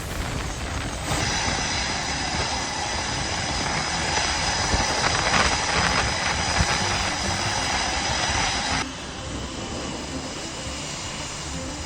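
Jet aircraft engines running on the ground, a loud rushing noise with a steady high-pitched whine. It drops off abruptly about nine seconds in.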